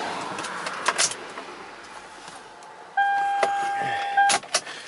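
Keys clicking at the ignition of a 2004 Toyota Highlander, then the dashboard warning chime: a single steady tone held for about a second and a half, cut off by a couple of sharp clicks near the end.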